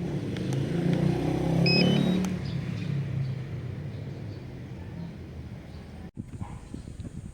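DJI drone's propellers and motors humming, swelling to their loudest about two seconds in and then fading, with a few short high electronic beeps near the peak. After an abrupt cut near the end, irregular crackling noise follows.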